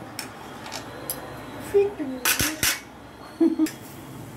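Steel ladle clinking against an aluminium kadai and steel vessels: about six sharp metallic clinks, the loudest two close together a little past halfway, with short ringing tones between them.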